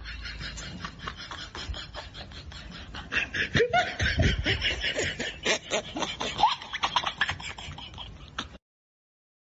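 A group of people laughing and whooping amid short sharp noises, getting louder about three seconds in, then cutting off to silence near the end.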